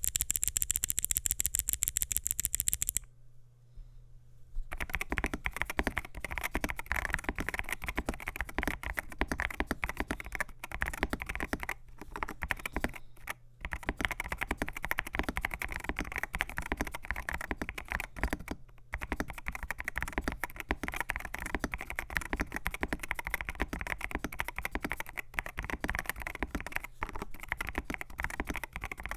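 Typing on an AKKO MU02 mechanical keyboard with AKKO Rosewood switches, FR4 plate, PBT keycaps and walnut case: dense, uneven keystroke clicks beginning about five seconds in, with two brief pauses. It opens with a fast, even run of sharp high clicks lasting about three seconds. A faint steady low hum lies underneath.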